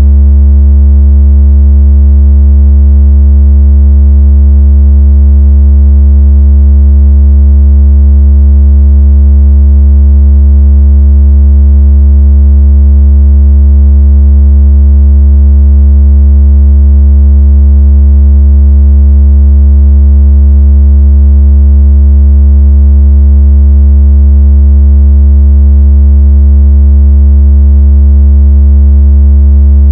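A loud, steady, very deep electronic tone with fainter overtones above it, holding one pitch without change. It is a synthesized 'water out of speaker' vibration tone, played to shake water out of a phone speaker or to test bass.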